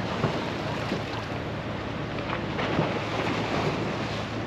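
Wind buffeting the microphone over choppy water splashing along a sailboat's hull, with a steady low engine hum underneath.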